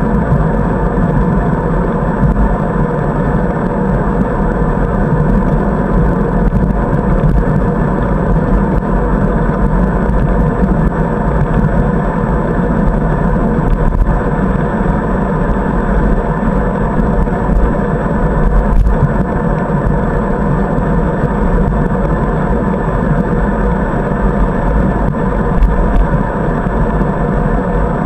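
Steady wind and road rumble on a bicycle-mounted camera while riding along a paved path, a dull noise with little high end and no distinct events.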